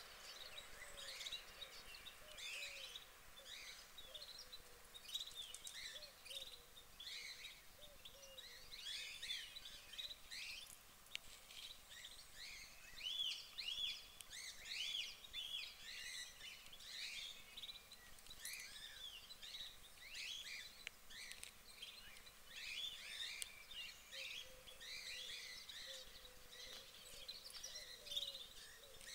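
Small birds chirping and singing throughout, many quick rising and falling notes overlapping, faint, with a few lower calls now and then.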